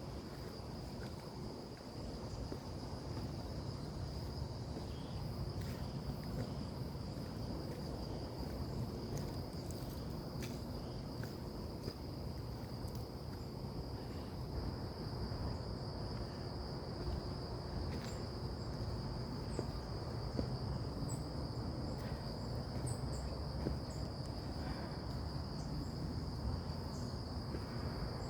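Insects trilling: one steady, unbroken high-pitched drone over a low rumble, with a few faint clicks.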